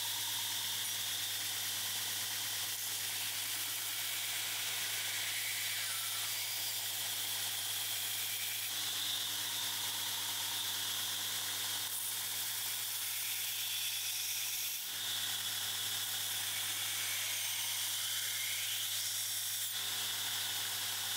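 Belt grinder running with a steady motor hum while a hardened damascus steel blade is ground flat on a 120-grit belt, giving a steady abrasive hiss. The hiss dips briefly about two-thirds of the way through.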